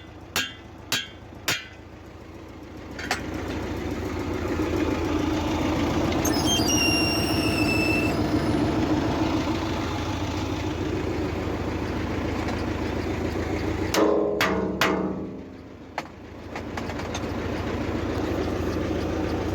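Four sharp hammer knocks at about two a second, knocking free the trip latch of a homemade tractor rear bucket under load. About three seconds in the tractor engine picks up and runs steadily, with a brief high squeal, a couple of metallic clanks, and a short drop in engine sound near the end before it picks up again.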